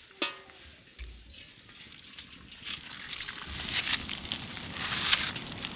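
Long strands of dry vermicelli being snapped and crushed by hand into a wok: a dense, irregular crackling that grows louder in the second half.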